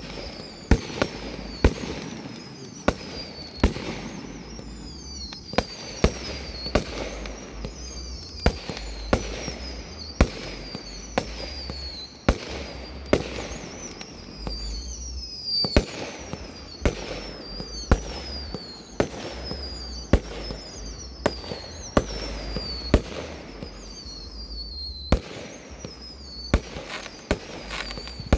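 Aerial fireworks bursting overhead in a steady, rapid string, about one and a half sharp bangs a second. Many shots carry a thin whistle that slides down in pitch.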